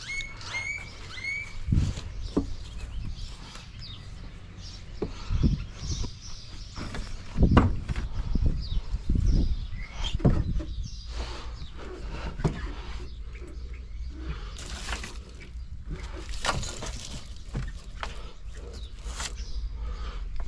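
Irregular knocks, clunks and rattles of hands working at a truck's wiring harness. A bird chirps three times at the start.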